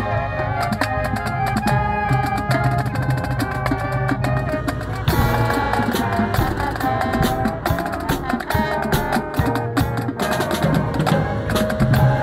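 Marching band playing: sustained brass chords from trumpets, mellophones and sousaphones over a drumline's snare and bass drum strokes, with a strong full-band accent about five seconds in.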